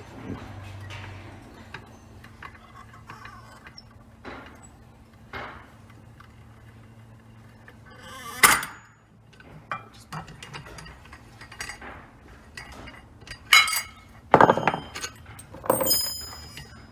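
Metal parts of a Can-Am X3 secondary clutch clinking and clanking as they are handled and set down on a bench. One sharp clank comes about halfway through, and a run of louder clinks follows near the end, one with a short metallic ring.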